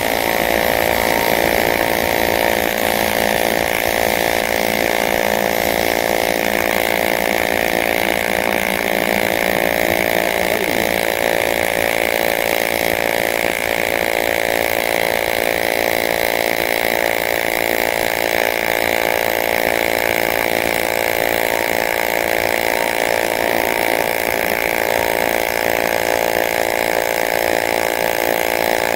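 AC TIG welding arc on aluminum pipe, a steady, unbroken buzz as the weld bead is run.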